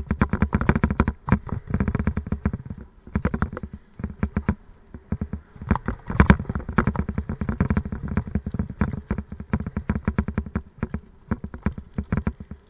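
Raleigh Mustang Elite mountain bike rattling and knocking over a rough, rutted dirt path: a rapid, irregular run of jolts, with a heavier knock about six seconds in.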